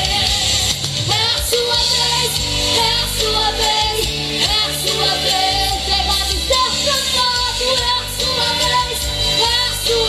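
A girl singing a Brazilian gospel song live into a microphone over instrumental accompaniment with a steady bass line.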